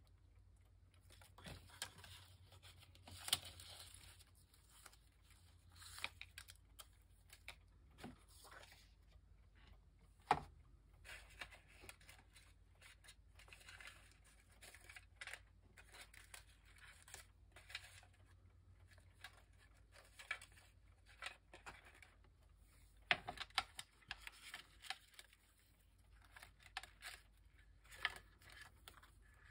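Faint paper rustling and crinkling as printed paper pieces are handled, with scattered light taps and clicks throughout.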